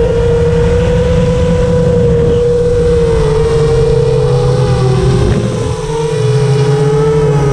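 Motors and propellers of a 5-inch FPV quadcopter on iFlight Xing 2806.5 1300kv motors, whining in flight, the pitch wavering up and down with throttle and easing off briefly about three-quarters of the way through.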